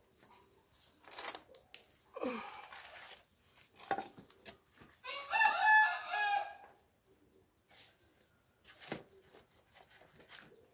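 A rooster crows once about halfway through, a single stepped call of under two seconds and the loudest sound here. Around it come scattered short rustles and knocks from hands working in potting soil and pots.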